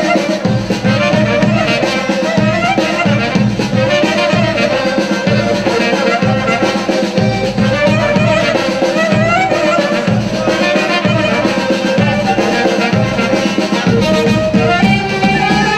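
Greek folk dance music: a large double-headed drum (daouli) beating a steady rhythm under a loud wind instrument playing a winding melody.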